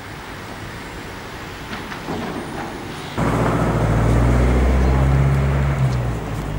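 Heavy construction-site engine running at a steady pitch, over steady site noise. It comes in suddenly and loud about three seconds in and drops away just at the end.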